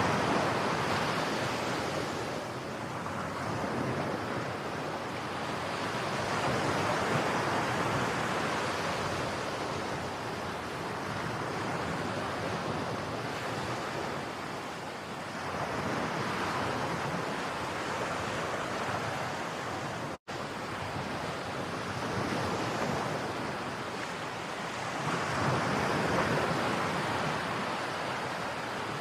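Sea waves washing onto a beach, the surf swelling louder and easing off again about every eight to ten seconds. The sound drops out for an instant about two-thirds of the way through.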